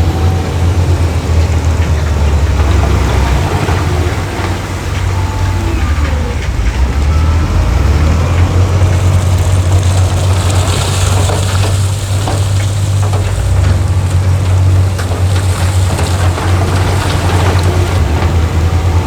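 Heavy diesel engine of earthmoving machinery running, a loud steady low drone. A harsher hissing, rattling noise joins it for a few seconds about halfway through.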